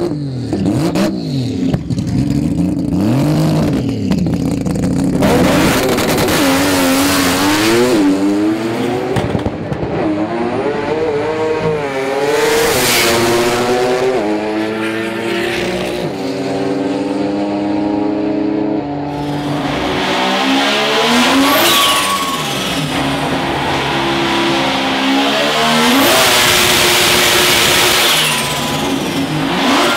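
Mazda 20B three-rotor rotary engines revving hard and accelerating. In the middle one climbs in pitch in steps, as if shifting up through the gears, and thin high whistles sound over the engine near the end.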